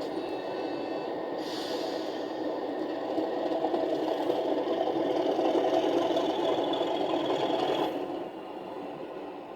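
Sound decoder of an OO gauge Accurascale Class 37 model locomotive playing its diesel engine sound through the model's small speaker as the model moves slowly. The engine sound grows louder about three seconds in and drops suddenly about eight seconds in.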